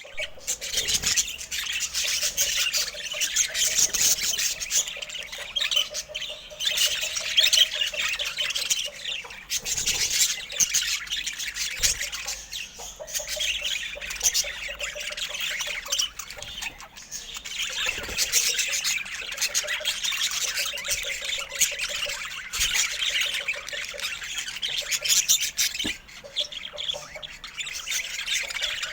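Budgerigar chattering and warbling continuously: rapid, scratchy chirps and squawks with short pauses.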